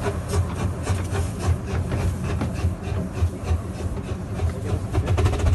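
Miniature steam locomotive struggling to haul its train, heard from a carriage behind: uneven chuffing and steam hiss with a rapid run of chuffs near the end, over the low rumble and clatter of the carriage on the track.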